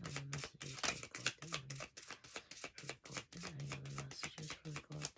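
Oracle cards being shuffled by hand: a quick, continuous run of card flicks and slaps, about six a second.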